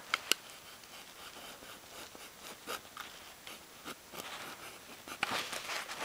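Stanley utility knife cutting and scraping at the outer jacket of a quad-shield coax cable, with handling rustles. A sharp click comes just after the start, and a run of scratchy clicks near the end.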